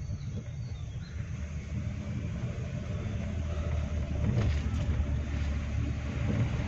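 Steady low rumble of a car's engine and tyres on the road, heard from inside the cabin while driving, growing a little louder in the second half.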